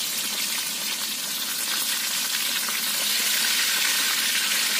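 Food frying in hot oil in a wok over a wood fire: a steady, even sizzle.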